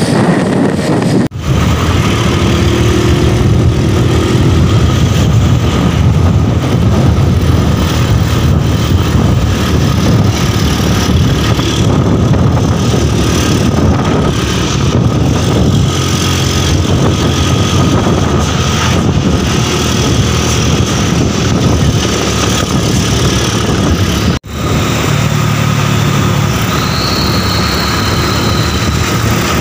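Light cargo truck's engine and stock exhaust running at a steady road speed, heard from close behind, with a steady high whine through it. The sound drops out briefly twice, about a second in and near the end.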